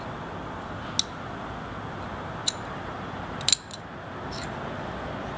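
Small, sharp metal clicks, a few seconds apart with a quick cluster about three and a half seconds in, as the blade of a Ganzo FH11 folding knife is fitted onto its pivot against the steel handle liner. A steady low hiss lies underneath.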